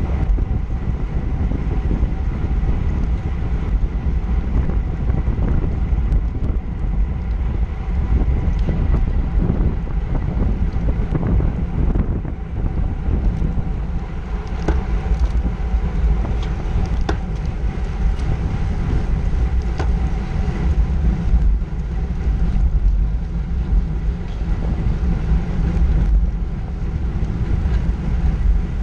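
Wind buffeting the microphone of a camera on a road bicycle riding at about 20 mph, over a low rumble of tyres on asphalt, with a few light clicks.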